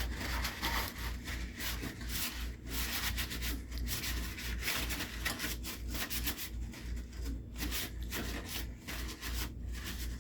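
A towel rubbing over the surfaces of a cotton candy machine in repeated wiping strokes, drying it after cleaning.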